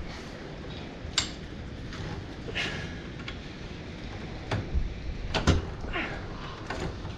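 A few sharp metal knocks and clinks with a brief scrape, the loudest about five and a half seconds in, as the lower end of a new rear shock is worked into its mount on a Polaris Ranger XP side-by-side.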